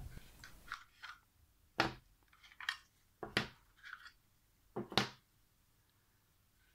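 Polymer grip panels and backstrap of a Heckler & Koch P30 pistol being unclipped from the frame and laid on a table: faint rustling and small clicks, with three sharper knocks at about two, three and a half and five seconds in.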